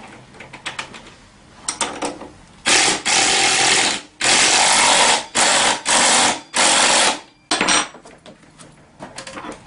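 Power ratchet running in five short bursts, driving down the 14 mm front axle nut on a scooter's front wheel.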